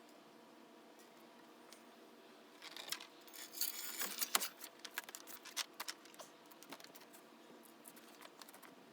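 Metal roller chain rattling and clinking in quick irregular jingles as it is handled, loudest a little past the middle.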